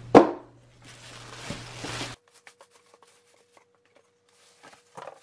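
Cardboard box and the plastic bag wrapped around a new inverter generator being handled. A loud sharp knock comes right at the start, followed by plastic rustling. About two seconds in, the sound drops almost to silence, leaving only faint scattered ticks and a small rustle near the end.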